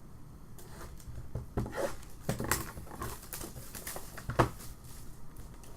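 Trading cards and their packaging being handled: rustling and sliding with a few sharp taps, the loudest about four and a half seconds in.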